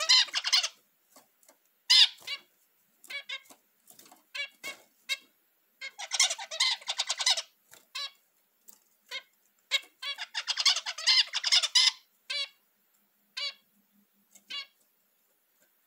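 Zebra finches: a male singing his courtship song in three short bouts of rapid buzzy notes, with single nasal calls in between that thin out near the end.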